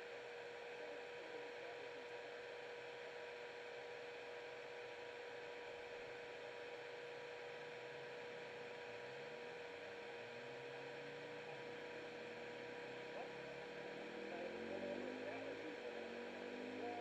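Steady electrical hum with a constant hiss. From about nine seconds in, faint tones slide up and down beneath it, getting a little louder near the end.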